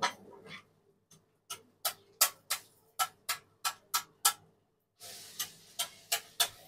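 Metal spatula tapping sharply on a dosa griddle as the cook works through a row of dosas, about three clicks a second. A steady hiss joins near the end.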